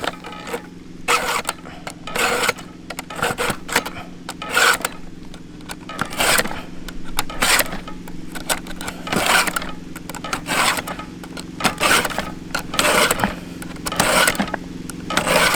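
Chainsaw chain being hand-filed in a filing guide: rasping file strokes across the cutters, roughly one to two a second, over a steady low hum.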